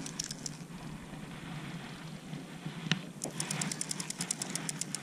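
Fishing reel clicking in quick runs of thin, high ticks while a hooked fish, which the angler suspects is a catfish, is being played and fights on the line. A single knock comes about three seconds in, over a faint low steady hum.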